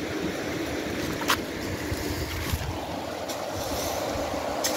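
Wind buffeting the microphone, a steady uneven rumble, with a sharp click about a second and a half in.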